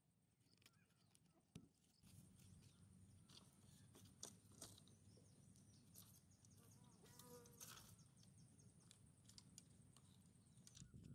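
Faint, scattered clicks and light knocks of wooden sticks and bamboo strips being handled, over a steady high-pitched insect drone.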